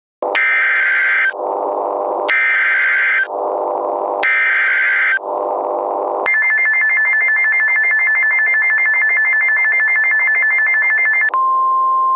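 Emergency Alert System SAME header: three one-second bursts of warbling data tones, with a lower buzz filling the gaps between them. Then a steady two-tone attention signal for about five seconds, switching about eleven seconds in to a single steady tone near 1 kHz, the NOAA Weather Radio warning alarm tone.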